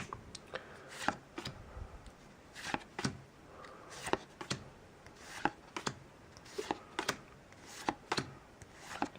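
Magic: The Gathering cards from a freshly opened booster pack being handled and flipped through by hand: short soft swishes and light snaps of card stock, about two a second at an uneven pace.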